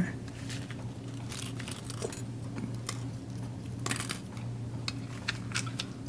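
Faint scattered clicks and light rustling of hands handling a thin craft-wire hanger against a plastic sign, over a steady low hum.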